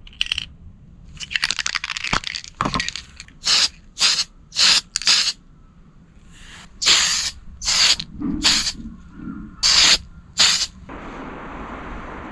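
Aerosol spray-paint can sprayed in about a dozen short bursts, building up coats of white paint on a plastic RC car body part. A steadier hiss starts near the end.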